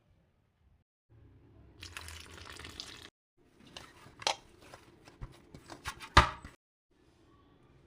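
A kitchen tap runs for about a second, then comes a series of clicks and knocks of kitchen things being handled, the loudest about six seconds in.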